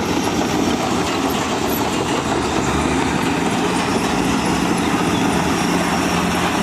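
Diesel engine of heavy earthmoving machinery running steadily, an even, unbroken rumble.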